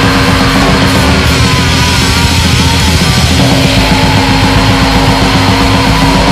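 Loud, dense black metal: distorted guitars and drums in a continuous wall of sound, with a higher melodic line wavering above it.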